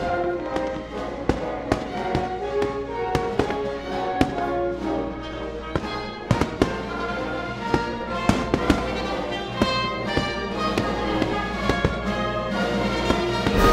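Background music with held melodic notes, over which fireworks go off in sharp, irregular bangs and cracks.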